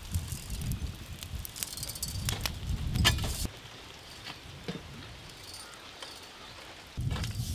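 Hand-wheel rotisserie spit turning a whole beef carcass over hot charcoal, with clicks and crackling from the turning spit and the coals. The sound drops away about three and a half seconds in and comes back near the end.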